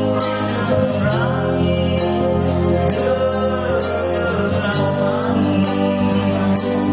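A live band playing a slow song: sustained chords over a steady beat, with cymbal strokes recurring regularly.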